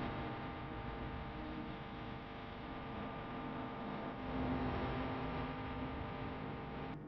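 Steady electrical hum with a hiss over it, unchanging throughout.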